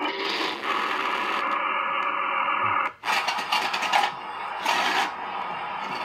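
Sampled tank engine sounds from a TK-26 RC tank sound board, played through its small speaker: one tank's engine runs for about three seconds, cuts off suddenly, and a different tank's engine sound starts, rising and falling a couple of times.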